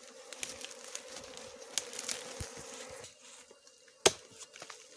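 Bees from a wild nest in a tree cavity buzzing in a steady hum that fades about three seconds in. About four seconds in comes a single sharp chop of a machete blade into the trunk.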